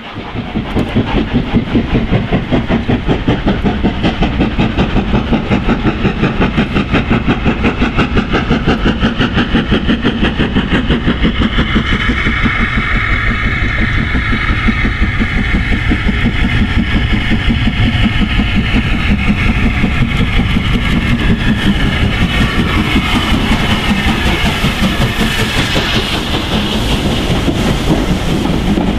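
LMS Class 5MT 'Black 5' two-cylinder 4-6-0 steam locomotive working hard with a passenger train, its chimney exhaust beating in a rapid, even rhythm. Near the end the carriages roll past, wheels clacking over the rail joints.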